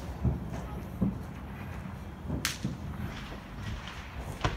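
Consumer fireworks going off: a sharp crack about two and a half seconds in and another near the end, with a few low thuds in the first second.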